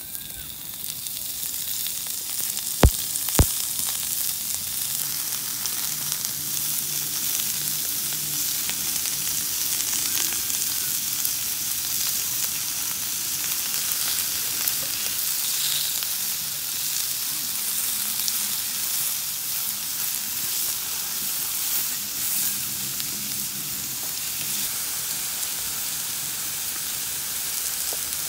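Sliced pork frying on a hot black metal griddle: a steady sizzle that builds over the first second as the slices go down and then holds. Two sharp clicks stand out about three seconds in.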